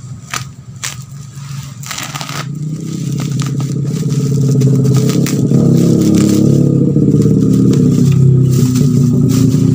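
Plastic parcel wrapping crackling and tearing as the tape is cut and pulled, with a few sharp crackles in the first couple of seconds. An engine's low running sound then builds from about two seconds in and becomes the loudest sound, staying steady to the end.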